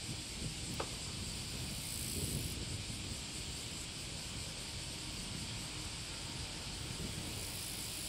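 Boeing 777 taxiing with its jet engines at idle, a steady hiss, while strong wind buffets the microphone in uneven low rumbles.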